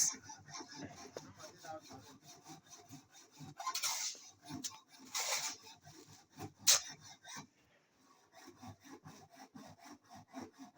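Repeated rough scraping and rubbing strokes, with a sharp knock a little past the middle.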